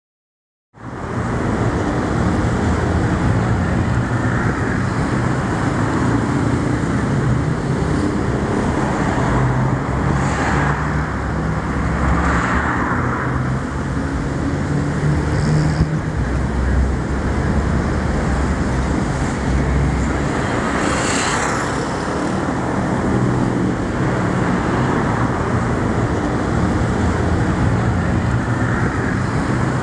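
Steady road traffic: engines running with vehicles passing, several louder pass-bys standing out now and then.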